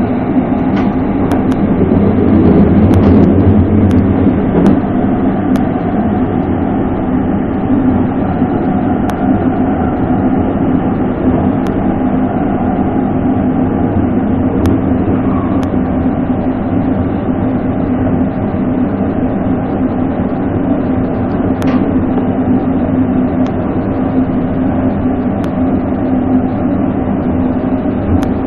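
Electric metre-gauge Glacier Express train running steadily on the rails, heard on board: a continuous rumble with a steady drone and occasional sharp clicks, a little louder in the first few seconds.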